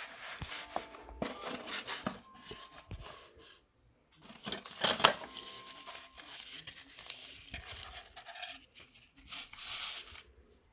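Packaging being handled and opened: irregular rustling and crinkling with small knocks, and a sharp click about five seconds in.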